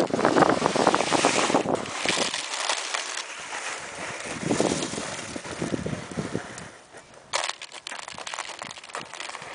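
Pea gravel crunching and rattling as a child scoops and handles it, with wind on the microphone. It is loudest in the first couple of seconds, with a sharp clatter about seven seconds in.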